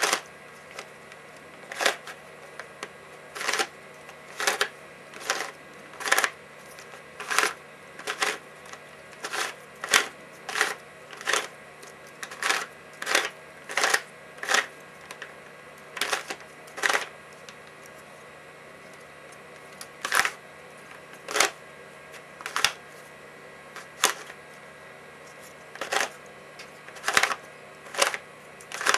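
Custom 3x3x2 Rubik-type puzzle with ABS plastic pieces being twisted layer by layer: sharp plastic clicks and clacks at irregular intervals, roughly one or two a second, with a pause of about three seconds past the middle.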